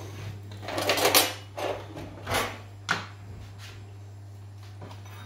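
Whole black peppercorns rattling into a dry frying pan in a few short bursts, the loudest about a second in, followed by a sharp click near three seconds.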